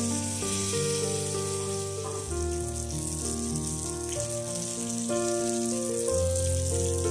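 Hamour fish pieces shallow-frying in hot oil in a pan, a steady sizzle, under background piano music.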